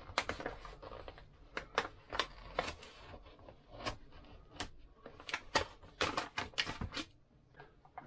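A white cardboard box being slit open along its taped seam with a small hand tool: an irregular run of sharp clicks, scrapes and crackles of tape and cardboard.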